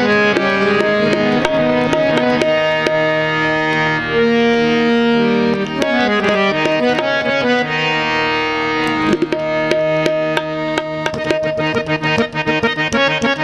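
Qawwali instrumental opening: a harmonium plays a sustained reedy melody over tabla strokes. About two-thirds of the way through, the tabla playing grows much denser and faster.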